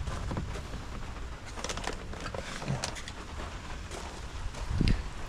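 Wind rumbling on the microphone as a storm front moves in, with a few faint scattered clicks and knocks.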